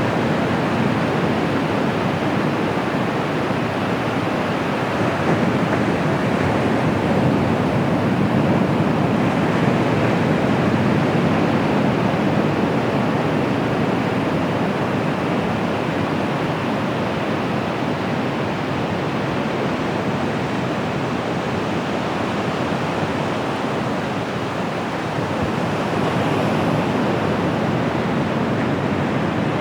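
Ocean surf washing continuously onto the beach, a steady rushing noise with gentle swells as waves break.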